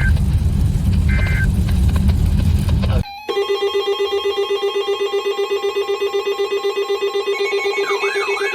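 Low vehicle rumble with a short electronic chime repeating about every second and a half. About three seconds in it cuts off abruptly to a loud, steady, rapidly pulsing electronic alert tone, and a warbling tone joins it near the end.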